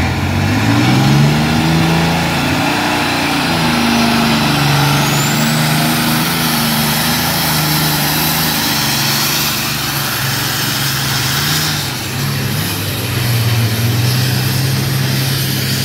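Triple-turbocharged Detroit Series 60 diesel engine of a pulling tractor running hard under full load down the track. Its pitch climbs as the hook starts, wavers as it pulls, then sags about twelve seconds in as the throttle is backed off and picks up again.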